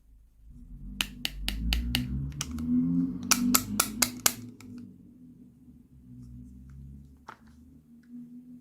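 Sharp clicks and taps of small hard plastic toy pieces being handled: a run of about five, then a quicker run of about six, with a faint click or two later.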